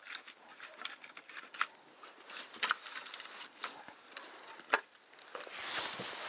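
Pieces of split firewood knocking together as they are picked up off the ground and piled into an armload: irregular light wooden clacks, the larger ones about once a second. A rustling hiss rises near the end.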